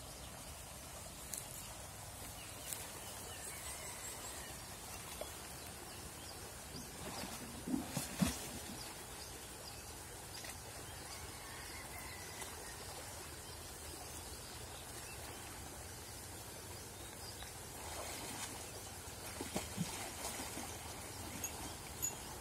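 An adult elephant and a calf playing in muddy river water: soft sloshing and churning, with a few short louder splashes about eight seconds in and again around twenty seconds in, over a quiet outdoor background.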